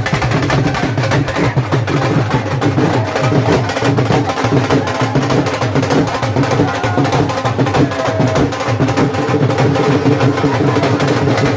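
Music with steady drumming and hand percussion.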